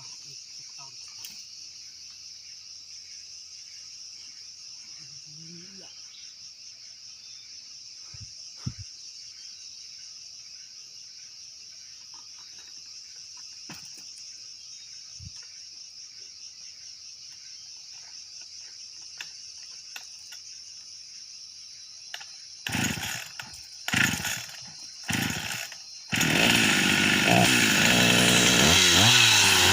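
Chainsaw engine firing in three short bursts, then catching at about 26 s and running loud and continuously, its pitch rising and falling with the throttle. Before that only a steady high-pitched hiss is heard.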